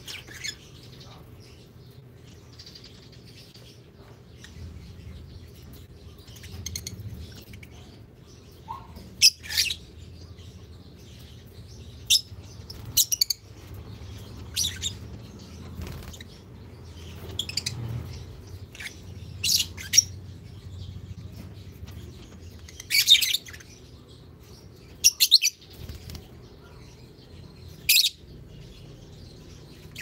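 Lovebirds giving short, shrill chirps, singly and in quick pairs every second or two, over a low steady hum.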